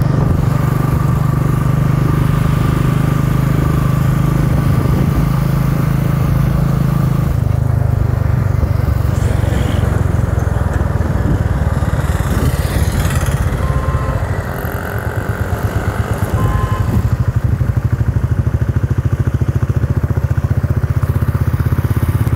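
Motorcycle engine running under way. Its note drops about a third of the way through and eases off around two-thirds, then it settles into a slower, evenly pulsing beat.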